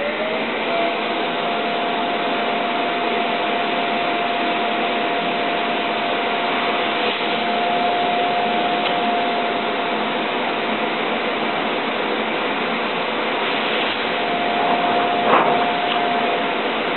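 Vacuum cleaner running with a steady whine, drawing suction through a PVC hose held on the circuit board to pull out molten solder. There is a short click about 15 s in, and the whine fades near the end.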